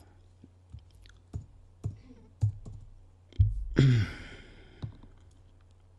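Irregular clicks and knocks, about six of them, from someone working a computer and handling the equipment to start a video playing. About four seconds in there is a brief, louder sound that falls in pitch.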